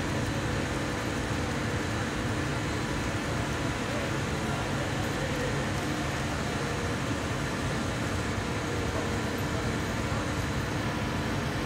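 Steady machinery drone of a Liebherr 500-tonne crane's engine running under load while it holds a suspended steel tank.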